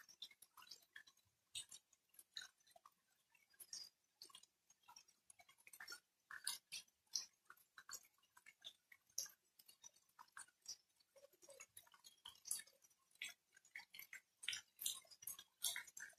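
Light rain: individual raindrops tapping irregularly, several a second, without the steady hiss of heavier rain.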